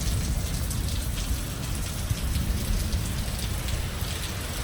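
Storm wind gusting over the microphone with a low rumble, and rain falling and spattering, with scattered drop ticks.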